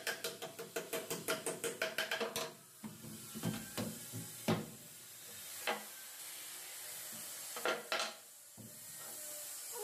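Hammer blows on a plywood frame strip, most likely driving nails: a quick, even run of strikes at about five or six a second that stops about two and a half seconds in, followed by a few single knocks and taps.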